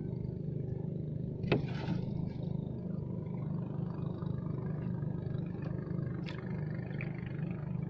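An engine running steadily with a low, even hum. A single sharp knock sounds about a second and a half in.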